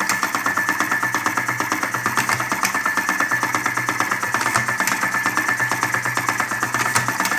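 Electric hopper-fed cigarette tube filling machine running, its 12 V motor-driven mechanism making a rapid, even, rhythmic clatter over a steady hum as tubes are filled; it runs without stalling.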